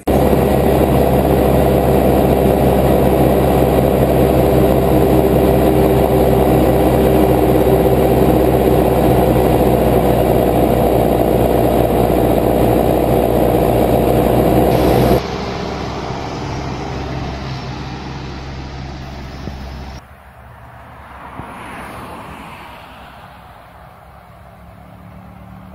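John Deere tractor's diesel engine running steadily at road speed, heard close up. About 15 s in the sound cuts abruptly to a quieter take, and near the end a tractor pulling a trailer is heard passing at a distance, its engine swelling and fading.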